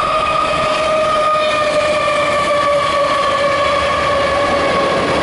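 Loaded CSX coal train passing: a steady rumble with a sustained high-pitched whine that slowly drops in pitch.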